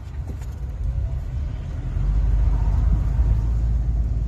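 Low, steady rumble of a car heard from inside its cabin, likely while it is being driven, growing louder about two seconds in.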